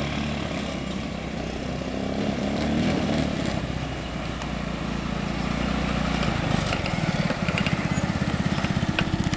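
Yerf-Dog off-road go-kart's small single-cylinder engine running as the kart is driven, its revs rising briefly about three seconds in. From about seven seconds in it is close by and louder, its firing heard as a rapid, even pulsing.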